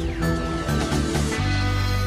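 Background music of held notes, with a deep bass note coming in about one and a half seconds in.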